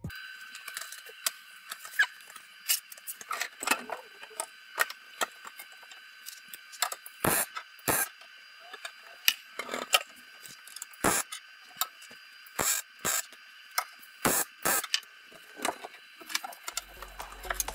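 MIG welding along a classic Mini's steel sill: irregular sharp crackles and pops over a steady high hiss.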